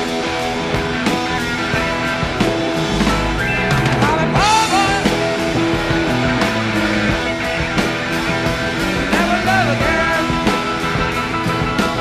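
Blues-rock band playing live with no singing: electric guitar lead with bent notes over bass and drums, with regular cymbal strokes.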